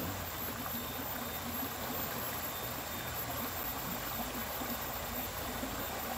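Steady rush of a small river's flowing water.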